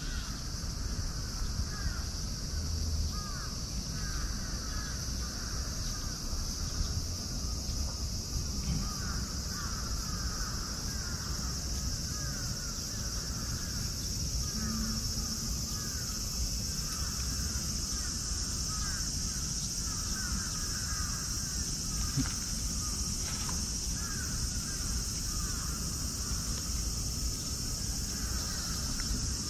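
Steady high-pitched insect drone with a continuous run of short repeated chirping calls.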